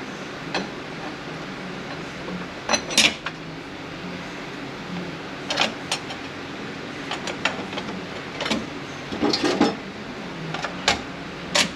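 Steel clutch plates and cushion plate of an 8L90 automatic transmission clinking against each other and the drum as they are stacked in, a run of irregular light metal clinks, some in quick clusters.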